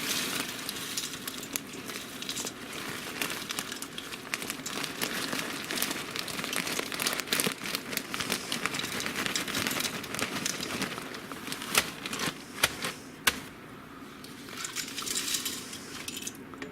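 Plastic bag of dry egg noodles crinkling and rustling as the noodles are shaken out into the pot, a busy crackle with a few sharper clicks. It dies down about three-quarters of the way through, with one more short flurry near the end.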